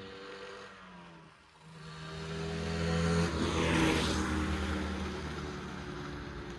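Rieju RS 50's 50cc two-stroke engine on the move: it runs quietly off the throttle, picks up from about a second and a half in to its loudest near four seconds, then eases off.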